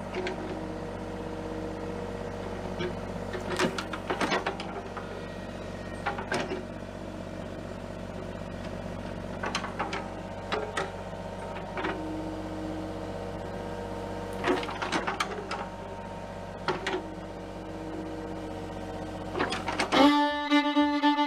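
Kubota mini excavator's diesel engine running steadily while it digs, with sharp clanks and knocks from the bucket and boom linkage every couple of seconds. About twenty seconds in, fiddle music takes over.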